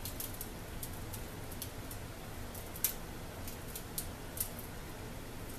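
Fingertip presses clicking on an electric oven's keypad as the oven temperature is set, small irregular clicks with the loudest just before the three-second mark, over a steady low hum.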